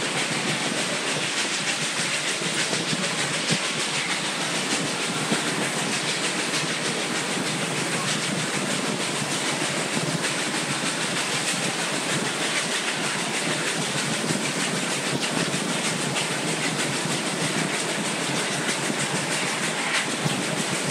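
Durango & Silverton narrow-gauge train running along the track, heard from aboard: a steady noise of the cars rolling and clattering over the rails.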